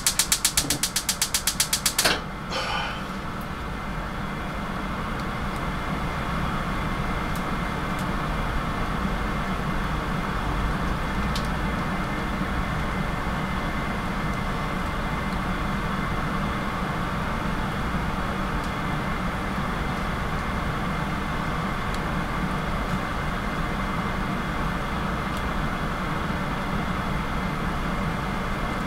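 Gas stove's spark igniter clicking rapidly, about ten clicks a second, for about two seconds until the burner lights. After that comes a steady rushing hum from the lit burner as a tomato is charred over the flame.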